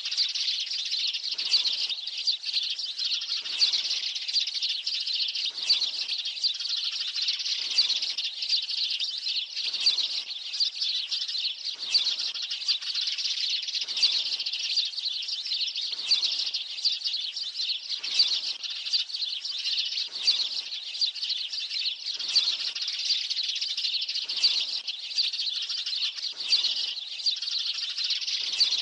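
A flock of sparrows chirping continuously in a dense chatter, with a stronger pulse about every two seconds. It is a sparrow lure call, played to draw a flock in for trapping.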